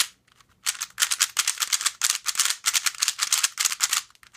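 Gans 3 57mm 3x3 speed cube turned rapidly by hand: a fast, dense run of plastic clicks and clacks as its layers spin. It starts about half a second in and runs on for about three seconds.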